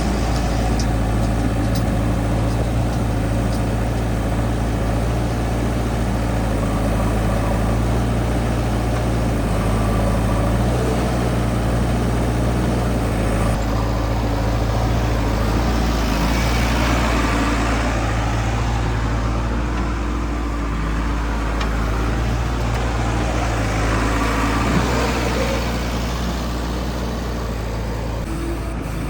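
Diesel engine of a JCB 3DX backhoe loader running steadily while it works, with two swells of louder rushing noise, one about midway and one near the end.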